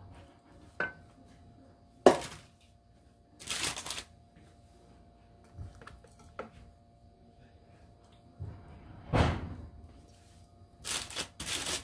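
Kitchen handling noises: a sharp knock about two seconds in, then several short rustling noises and a few light clicks as utensils are moved about on the table.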